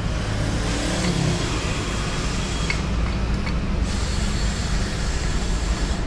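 A motor vehicle engine running steadily with a low rumble, with a few faint clicks in the middle.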